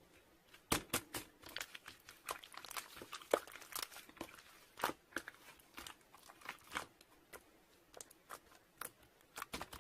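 Irregular close-up clicks and crinkling crackles, a few a second, like something being handled or crumpled.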